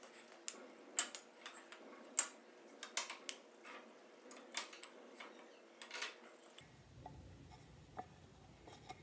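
Light, irregular clicks and taps of a metal combination square and pencil knocking against wooden boards on a workbench while drill-hole positions are marked out. About a dozen sharp clicks come in the first six seconds, then only one or two more.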